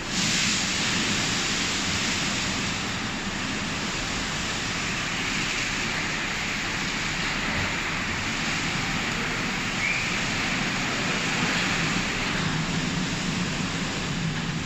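Tunnel car wash machine running: a steady rushing noise of spraying and blowing with a low machine hum underneath.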